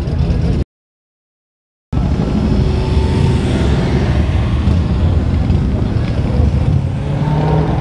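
Cars driving out past the camera, their engines and exhausts giving a steady low rumble, including a C7 Corvette's V8, with wind buffeting the microphone. The sound cuts out completely for about a second near the start.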